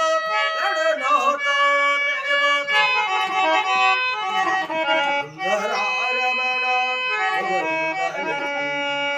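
Portable harmonium playing a Kannada devotional song to Ganesha, its reeds sounding sustained, layered notes, with a man's voice singing along in places.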